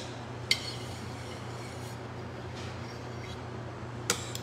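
Steady low hum of kitchen room tone with light metallic clinks of a metal cake spatula against an aluminium cake turntable: one sharp clink about half a second in, and two faint ones near the end.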